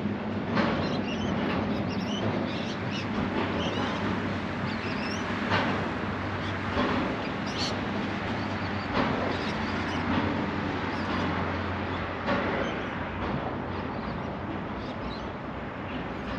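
Narrow-gauge freight train rolling by, a steady rumble with a low hum and occasional sharp knocks from the wagons. Birds chirp faintly over it.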